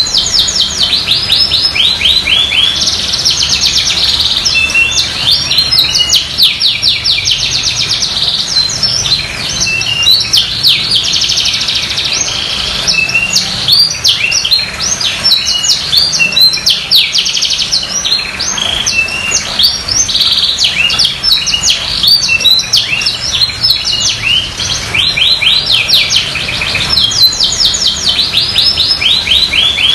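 Domestic canary in full song: a long, continuous run of rapid rolling trills and chirps, with only brief breaks between phrases.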